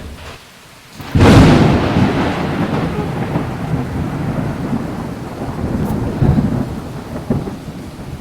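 A sudden loud thunderclap about a second in, followed by long rolling thunder rumble over steady rain.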